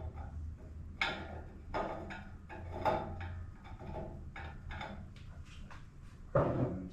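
A series of sharp metal clanks and knocks from car parts and bolts being handled and shifted into place, about six in all, the loudest shortly before the end, over a steady low hum.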